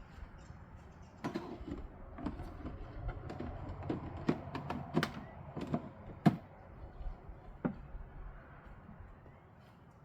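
Irregular clicks, knocks and rattles of metal tube-frame sections and parts being handled and fitted together, with one louder knock after about six seconds; the knocking dies away in the last couple of seconds.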